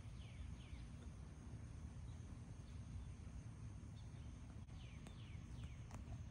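A bird calling in short runs of quick downward-sliding chirps, once at the start and again about five seconds in, over a faint, steady low rumble.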